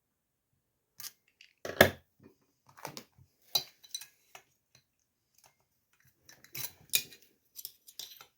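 Hand tools and small metal chainsaw parts clinking and knocking against each other during a teardown: irregular separate clinks, the loudest about two seconds in and a cluster near the end.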